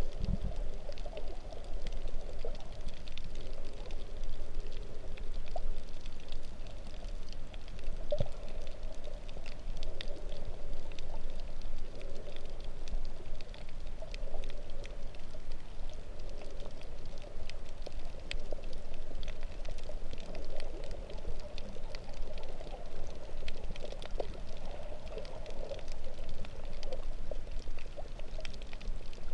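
Underwater sound while snorkeling: a steady gurgling, pouring rush of water with a dense fine crackle of tiny clicks throughout.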